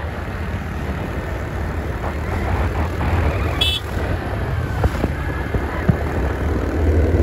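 Motor scooter riding along a road: a steady low rumble of engine and wind on the microphone, getting louder near the end, with one short high chirp about three and a half seconds in.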